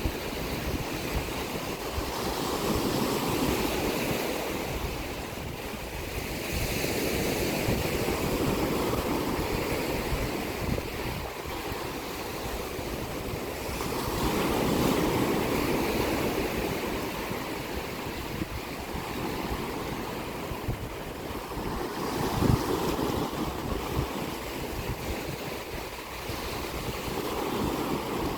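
Sea waves breaking on the shore and washing back, swelling about every six seconds, with wind gusting on the microphone.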